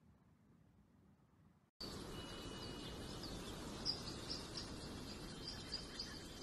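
Near silence for about the first two seconds, then outdoor ambience cuts in: a steady rushing noise with repeated short, high chirps and a thin high steady tone that comes and goes.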